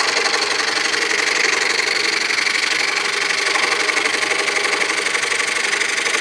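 DeWalt scroll saw running steadily, its blade cutting through a thick stack of wood held down hard against the table.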